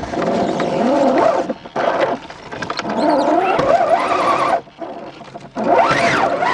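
Electric motor and gearbox whine of an RC scale crawler truck (Novak 18.5 motor system driving an Axial transmission), rising and falling in pitch with the throttle as it climbs over rocks. It cuts out twice when the throttle is let off, then climbs steeply in pitch near the end.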